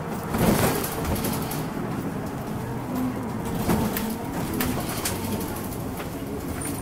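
Ride inside a Mitsubishi Aerostar one-step city bus: the engine running steadily with a faint steady whine, a brief loud rush about half a second in, and a few short low tones near the middle.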